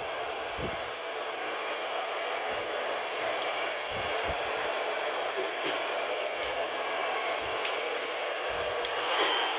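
A handheld Revlon hair dryer running steadily, blowing an even rush of air.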